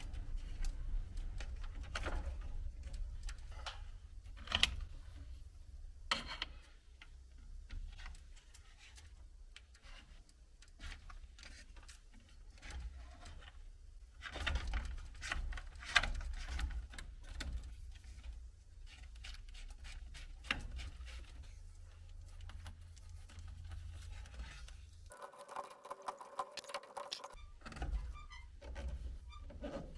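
Irregular clicks, taps and knocks of tools and parts being handled, over a steady low rumble, with a short steady hum near the end.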